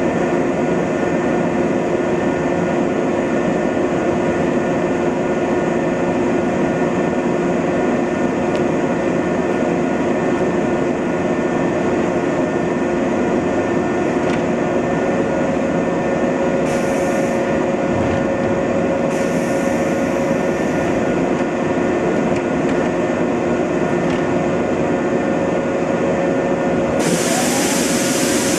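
Electric commuter trains standing at a station, their onboard equipment humming steadily, with a couple of steady tones running through the noise. Three short hisses cut in during the second half, the last and loudest near the end.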